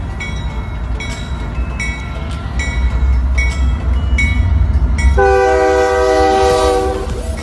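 Union Pacific GE C45AH-T4 diesel locomotive consist rumbling past at speed. About five seconds in, the lead locomotive sounds one long blast on its multi-note air horn, a chord of several tones lasting about two seconds.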